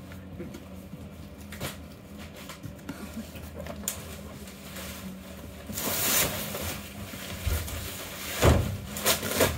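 Cardboard shipping box being opened and handled: flaps pulled open and rustling, with scattered knocks and two louder thumps near the end.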